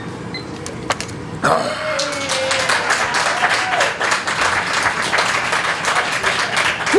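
A small group of people clapping, with a voice or two cheering, breaking out about a second and a half in and carrying on.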